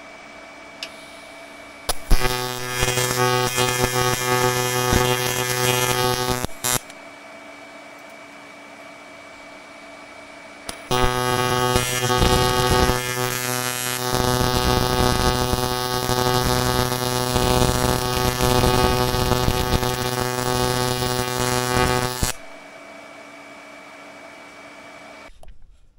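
TIG welding arc buzzing steadily in two runs, one of about four seconds and then a longer one of about eleven seconds, set to about 205 amps with a lot of heat going in. Between the runs, only a faint steady hum.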